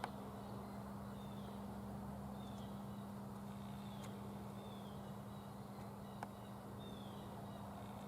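Faint outdoor field ambience: a steady low hum under a run of short, high, falling chirps from small birds about once a second, with a couple of soft clicks.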